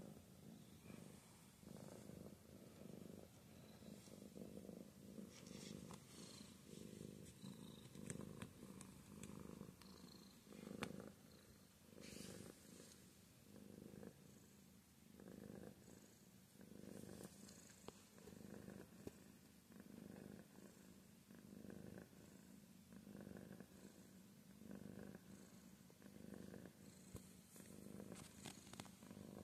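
Domestic cat purring: a soft low rumble that swells and fades with each breath.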